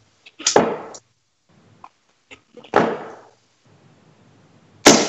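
Three steel-tip darts striking a bristle dartboard one after another, about two seconds apart. Each is a sharp thud that dies away within half a second.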